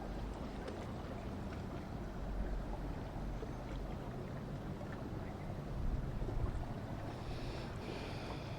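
Boat engines running steadily, heard through wind on the microphone and moving water. A higher-pitched whine joins in near the end.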